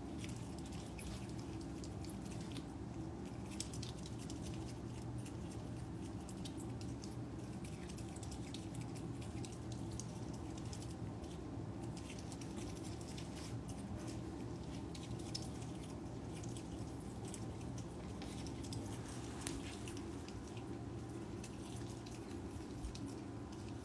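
Pet otter chewing dry kibble: faint, scattered crunching clicks over a steady low room hum.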